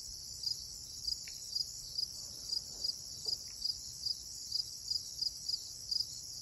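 Crickets chirping, with short chirps repeating about three times a second over a steady high-pitched chorus.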